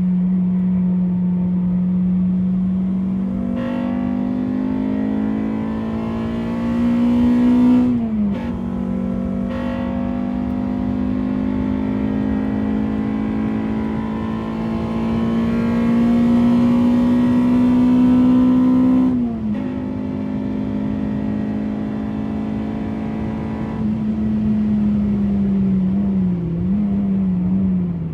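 Honda Civic EP3's K20A2 2.0-litre four-cylinder engine pulling hard at high revs. Its pitch climbs slowly and falls sharply twice, about 8 and 19 seconds in, as it shifts up a gear. Near the end the revs dip and waver as it slows.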